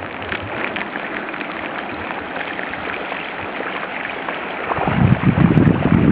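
Bicycle tyres hissing and splashing through shallow floodwater covering a road. From about five seconds in, a louder, lower buffeting of wind on the microphone joins in.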